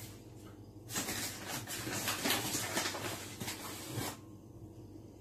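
Crackling, rustling handling noise with many small clicks. It starts about a second in and stops about four seconds in.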